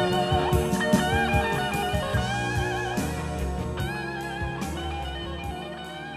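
Background music led by an electric guitar playing wavering, bent notes, gradually fading down.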